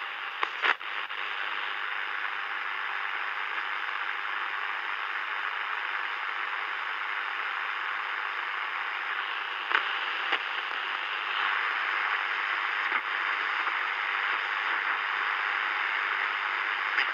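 Sony ICF-SW10 shortwave receiver's speaker giving a steady hiss of static between stations while it is tuned, with a few short crackles, the sharpest about half a second in.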